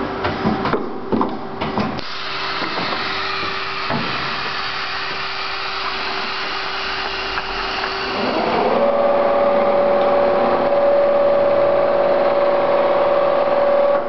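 Plastic tank clinching (crimping) machine running: a few knocks of its working parts at first, then a steady mechanical hum with a hiss. About eight seconds in, a motor whine rises in pitch and holds at a higher, louder steady tone.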